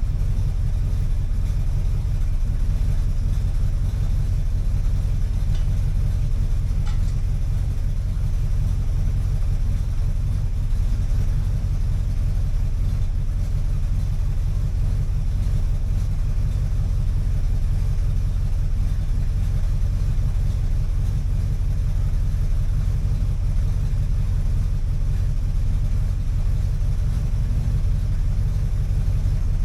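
Vehicle engine running steadily at idle: a low, even rumble that holds the same pitch and level throughout.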